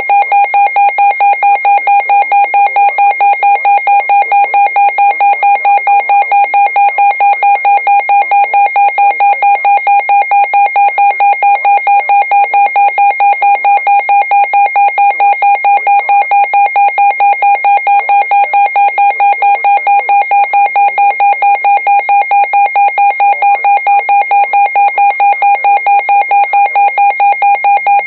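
Emergency Alert System alarm tone for a Special Marine Warning: a loud electronic signal of several pitches at once, pulsing rapidly and evenly.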